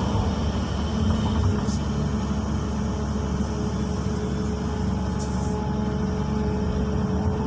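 XCMG 215C hydraulic excavator's diesel engine and hydraulics working as the bucket digs, heard from inside the cab: a steady low hum with a steady whine over it and a few faint clicks.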